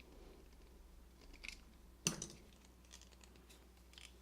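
Faint metallic clicks from the parts of a lockset being worked apart by hand, with one sharper click about two seconds in.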